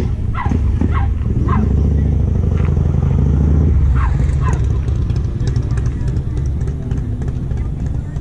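A loud, low engine rumble, as of a vehicle idling close by, easing off somewhat in the second half. Over it, a small dog yips several times in short falling calls, in pairs and threes.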